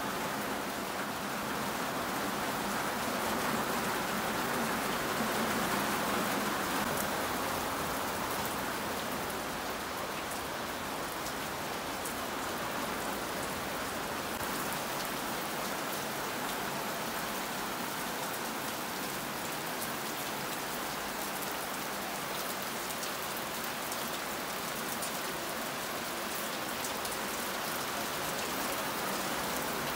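Heavy rain falling steadily, a continuous hiss of rain on surfaces with a few sharp drip ticks.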